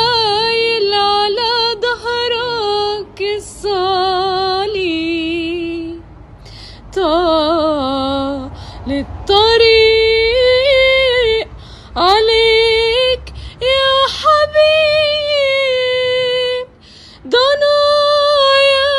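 A solo female voice singing a slow Egyptian Arabic Good Friday lament, holding long notes with vibrato in phrases broken by short pauses.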